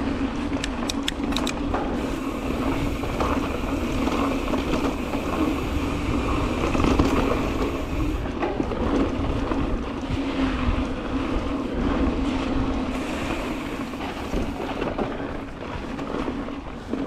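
A mountain bike rolling along a dirt trail, with wind rushing over the microphone and a steady rumble. A few sharp rattles sound about a second in.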